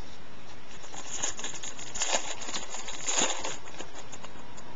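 A trading card pack being handled: the wrapper crinkling and cards sliding against each other, a run of light rustles and clicks with two louder rustles near the middle.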